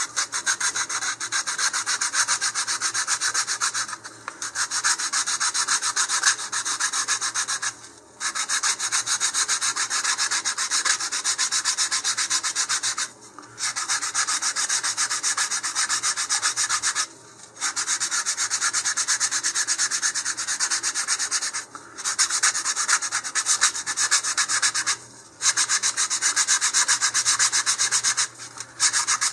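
Sandpaper rubbed quickly back and forth by hand around the outer edges of wooden centering rings on a rocket motor mount tube, in runs of a few seconds with short pauses between. The rings are being sanded down because they are too tight to slide into the body tube.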